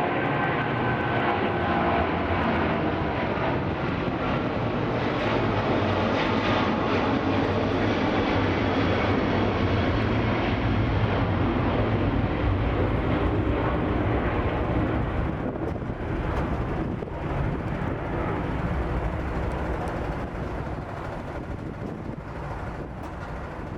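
Boeing 777's twin turbofan engines at high power on departure: a loud, steady roar with a deep rumble, fading over the last several seconds as the jet moves away.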